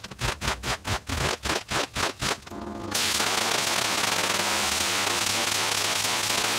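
A quick run of short bursts of noise, about four a second, for the first three seconds. Then a steady, loud hiss of a water jet from a hose wand spraying onto a soaked shag rug.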